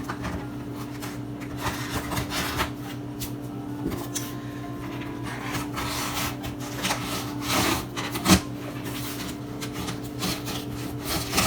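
Cardboard shipping box being opened by hand: irregular scraping, rubbing and tearing at the packing tape and flaps, with a sharp click about eight seconds in, over a steady low hum.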